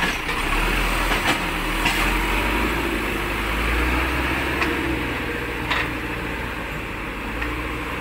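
Caterpillar 424B backhoe loader's diesel engine running as the machine drives off through mud, pulling harder for a few seconds and then easing off, with a few sharp knocks.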